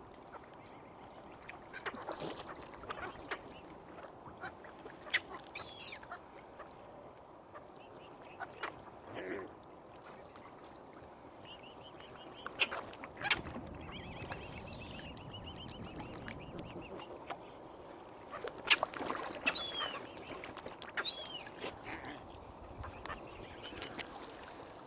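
Waterfowl calling: scattered honks and short calls at irregular intervals, mixed with sharp clicks, with the loudest calls about 13 and 19 seconds in.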